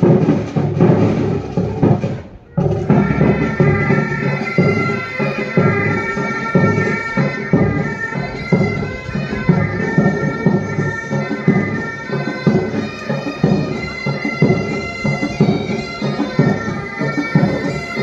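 Military pipe band: drums play alone at first, then after a brief break about two and a half seconds in, bagpipes come in over the drums and play a tune with a steady beat.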